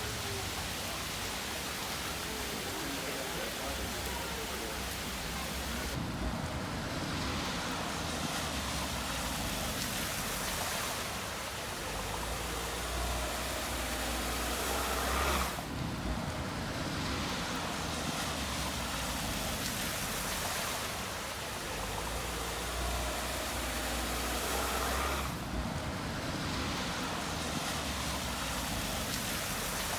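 Steady rushing noise of heavy rain and running floodwater, changing abruptly about 6, 15 and 25 seconds in.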